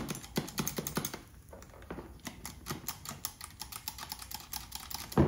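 Rapid, irregular small metallic clicks and rattles from a two-barrel Motorcraft carburetor as it is handled and its choke linkage is worked by hand, with a louder clack near the end.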